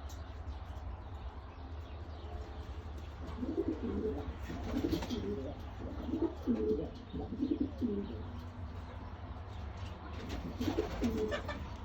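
Domestic pigeons cooing: a run of low, rolling coos from about three and a half seconds in until past the middle, then a few more near the end, over a steady low hum.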